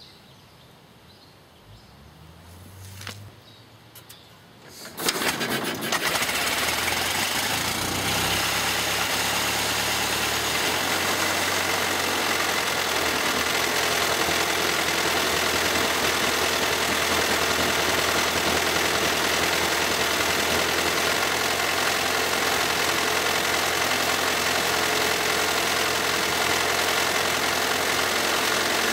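Ford Model T four-cylinder engine starting abruptly about five seconds in, then running steadily at idle. It settles to an even idle about ten seconds in.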